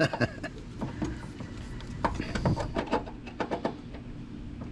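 Scattered clicks and knocks of hose fittings and plastic plumbing being handled, over a steady low hum.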